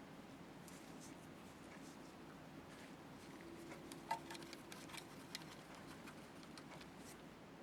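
Faint scattered clicks and light handling noises of small metal slit-lamp elevation parts being greased by hand, with one sharper click about four seconds in.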